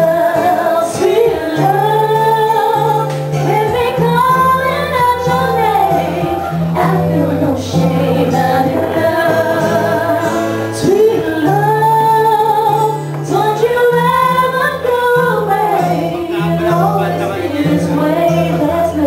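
A woman singing a slow melody into a microphone, with instrumental accompaniment holding steady low notes underneath.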